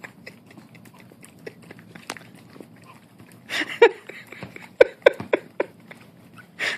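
Dog licking and smacking its lips over and over, working sticky peanut butter off its tongue and mouth. The wet clicks come in scattered ones and twos, with a run of louder smacks around the middle.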